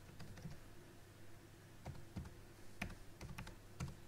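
Typing on a computer keyboard: a handful of separate faint key clicks as a few numbers are keyed in, most of them in the second half.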